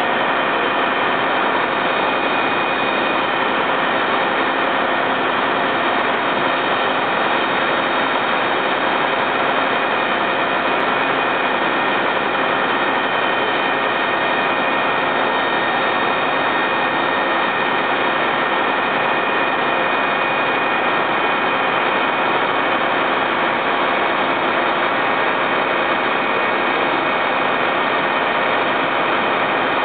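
Fire truck's diesel engine running steadily, a constant loud drone with several steady whining tones over it.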